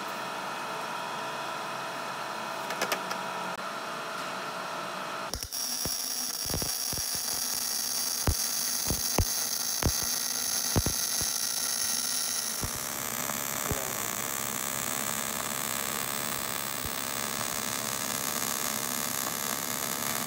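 Automatic bore welder running a MIG weld around the inside of a worn excavator pivot bore, building it up for line boring. After a steady hum for the first five seconds, the arc's even crackling hiss starts suddenly, with a run of sharp spatter pops.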